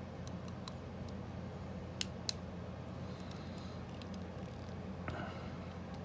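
Small sharp metal clicks of a hook pick and tension wrench working in the keyway of a pin-tumbler disc padlock, with two louder ticks about two seconds in, over a steady low hum.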